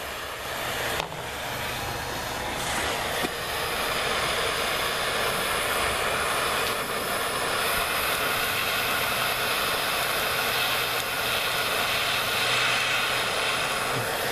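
Handheld gas torch lit with a click about a second in, then burning with a steady hissing rush against the base of a homemade cold smoke generator to ignite its wood chips. Compressed air hisses through the generator's air line underneath.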